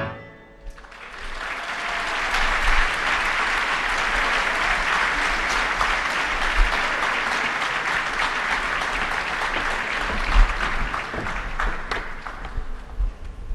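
Audience applauding in a hall as a violin piece ends. The last violin note dies away at the very start, the clapping builds up within about a second, holds steady, and tapers off near the end.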